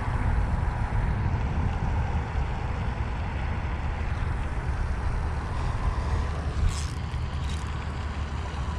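Steady low rumble of wind buffeting the microphone, with two short clicks about seven seconds in as a spinning reel is worked.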